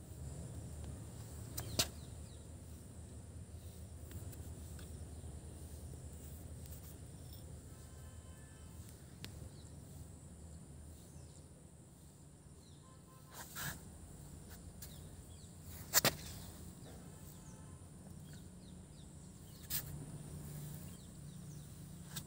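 Faint outdoor background noise with a steady low hum, broken by a few sharp clicks, the loudest about two-thirds of the way through.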